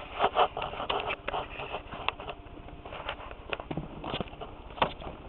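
Irregular light clicks and rustling of handling around a printer's plastic paper glide, with no steady motor sound.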